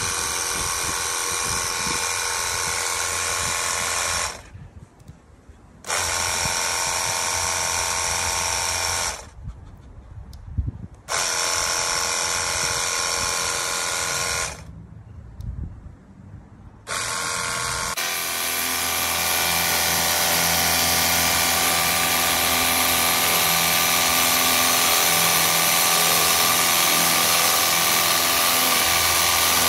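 Pircaath 500 PSI cordless pressure washer's battery-powered pump motor whining in three runs of about three to four seconds with short pauses between, then running without a break through the second half.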